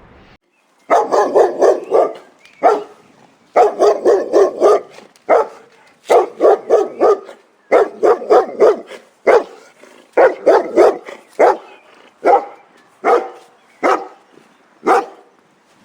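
Dog barking in rapid volleys of several barks each, with short pauses between the volleys.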